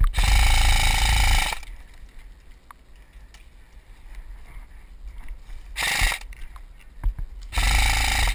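A KWA M4 airsoft rifle firing full-auto bursts with a fast, even mechanical buzz. There is a long burst of about a second and a half at the start, a short one about six seconds in, and another near the end.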